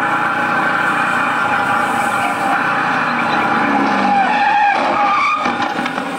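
Sound effect of a car speeding with tyres skidding, played loud over a loudspeaker. The wavering pitch peaks about four to five seconds in, and the sound fades out near the end.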